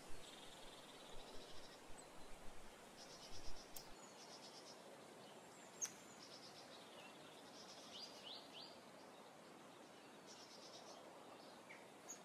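Faint outdoor nature ambience: a soft steady hiss with short high bird chirps and trills now and then, and a single sharp click about six seconds in.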